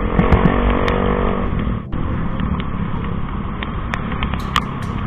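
Motorcycle riding on a wet road: the engine's even hum is heard for the first second and a half, then fades into a steady rush of wind and road noise, with a brief dip just before two seconds in. Scattered sharp ticks sound over the rush.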